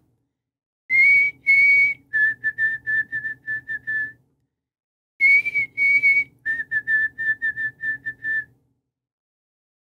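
White-throated sparrow singing its clear whistled song twice. Each song opens with two long notes, then drops to a quick run of short, slightly lower notes.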